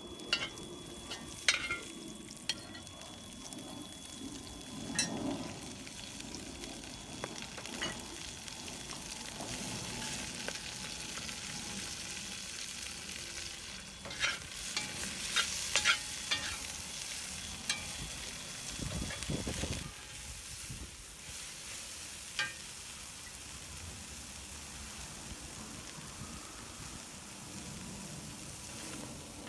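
Egg and Chinese chives stir-frying in a cast iron wok: a steady sizzle, with a metal spatula scraping and clacking against the pan. The clacking is busiest about halfway through, when the chives go in and are tossed.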